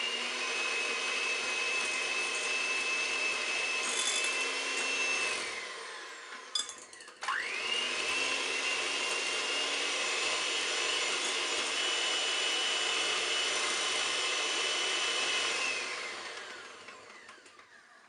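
Electric hand mixer with twin beaters running at a steady whine while beating butter into a whisked egg-and-sugar batter. It winds down about five seconds in, spins up again about seven seconds in, and winds down again near the end.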